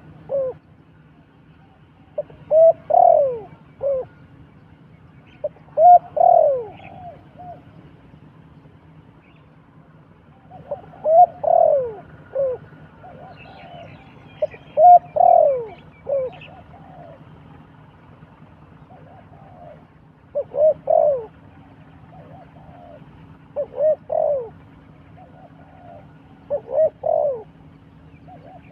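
Dove cooing in short phrases of two to four falling coos, repeated about seven times at gaps of a few seconds. Faint chirps from other birds come midway.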